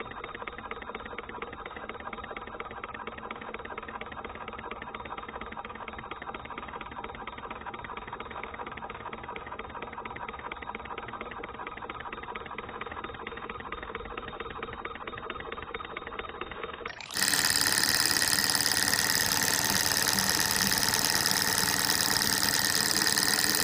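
Small model Stirling engine running: a rapid, even mechanical clatter from its pistons, linkage and flywheel. About 17 seconds in it becomes louder and brighter.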